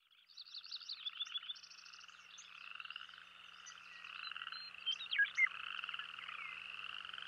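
Chorus of small animals calling: rapid pulsed trills and chirps layered over one another, with a few louder sharp calls about five seconds in.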